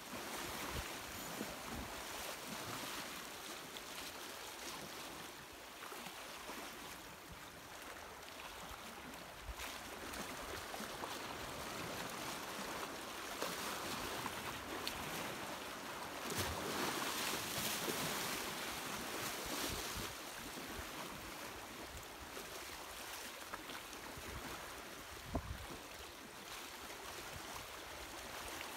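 Sea waves washing against shoreline rocks, with wind on the microphone; the wash swells louder about halfway through, and there is one short knock near the end.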